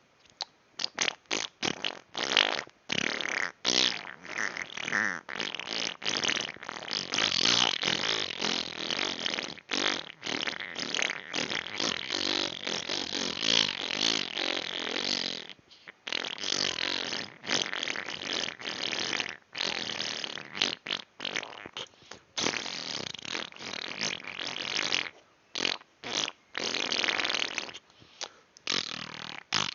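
Mouth farts: a person blowing raspberries through the lips. Many short blasts at first, then long drawn-out ones lasting several seconds, with brief pauses between.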